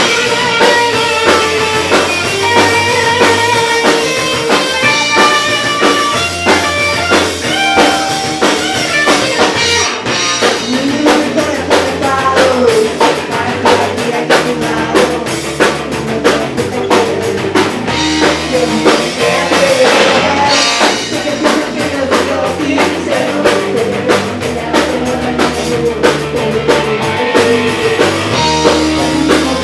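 Punk rock band playing live, with distorted electric guitars, bass and a pounding drum kit under a shouted lead vocal.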